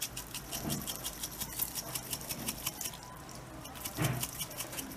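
Melted butter and liquid bubbling over low heat in a stainless steel pot, crackling with rapid, irregular small pops. A soft knock about four seconds in.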